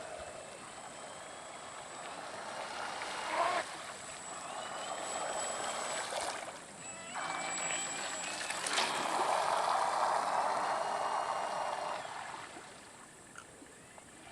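Homemade radio-controlled boat running on the water: its motor whines, the pitch sliding up and down with the throttle, over a hiss of water. It is loudest for a few seconds past the middle, then fades.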